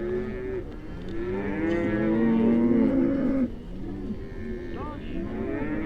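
A herd of cattle on a drive, several animals mooing at once in overlapping calls. The calling is loudest for a couple of seconds in the first half, then drops off suddenly and carries on more softly.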